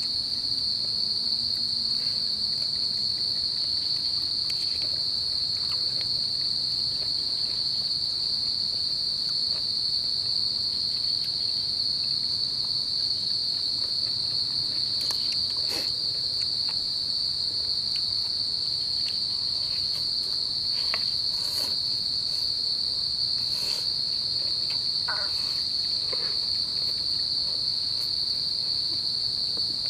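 Insects trilling in a continuous, steady high-pitched drone that never lets up. A few faint clicks come through during the second half.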